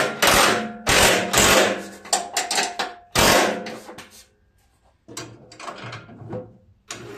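Hand tools clanking and rattling against the mower deck's metal brackets and bolts while the hardware is tightened: a few loud, sharp clatters in the first three seconds or so, a short pause, then lighter knocks near the end.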